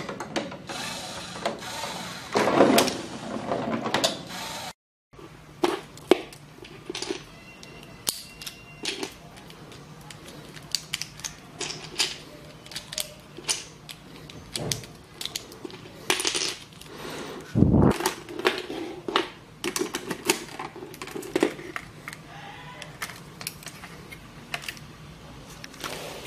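A dense rattle from a LEGO robot table for the first five seconds. After a brief dropout comes a long run of sharp plastic clicks and clacks as a LEGO Technic gun is handled and worked, with one heavy knock about two-thirds of the way through.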